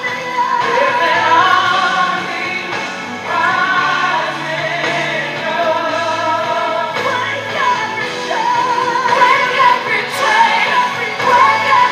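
Gospel song playing: a singing voice carries a wavering melody over steady bass notes and accompaniment.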